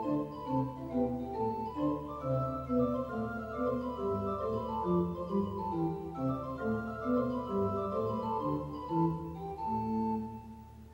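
Pipe organ playing, a steady low pedal note held beneath running lines of short sustained notes; the music softens near the end.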